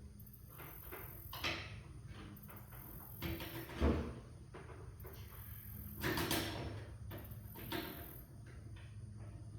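Work on a garage door's hardware: scattered clanks and scrapes over a steady low hum, with one sharp knock about four seconds in and a longer scrape about six seconds in.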